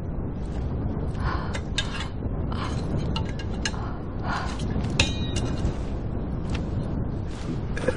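Steady low wind noise, with scattered light clicks and short rustling, breathy sounds over it.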